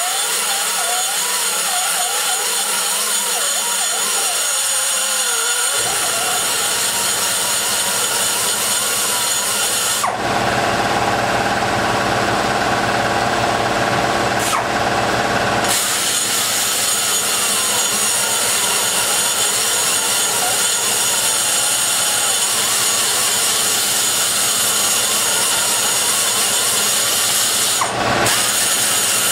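A die grinder with a spiral carbide burr runs at high speed, grinding metal from the exhaust port of an aluminum cylinder head as the port is rough-shaped. It makes a steady, high whine with the grinding noise of the cut. About ten seconds in, the sound changes for around five seconds, with the burr out of the port, and then the cutting resumes.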